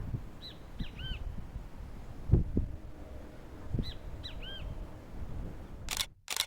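A bird calling twice, each call a short high note followed by a lower arched note, over low wind rumble and a few thumps. Two short bursts of noise come near the end, then the sound cuts off.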